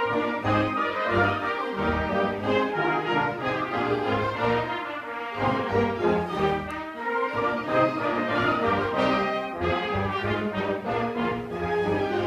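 Student concert band playing a piece, full ensemble with brass to the fore over low notes in short repeated strokes.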